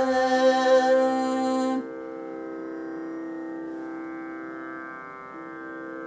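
Two male voices hold the closing note of a Carnatic vocal piece over a steady drone; the singing stops about two seconds in, leaving the drone sounding on its own.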